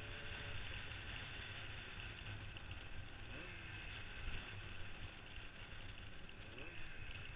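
1977 Yamaha RD400's air-cooled two-stroke twin running under way, heard under a heavy rush of wind and road noise, with the engine note changing pitch twice, about three and a half and six and a half seconds in.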